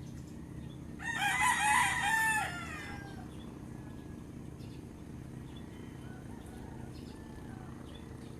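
A rooster crows once, loudly, about a second in, the call lasting about a second and a half, with fainter crowing further off later. A steady low hum runs underneath.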